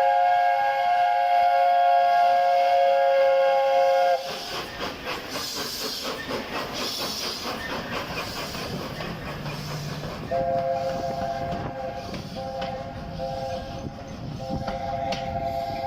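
Train horn sounding a steady multi-note chord that cuts off abruptly about four seconds in. The rumble and rhythmic clatter of the train's wheels on the rails follow. About ten seconds in the chord sounds again, broken into several blasts.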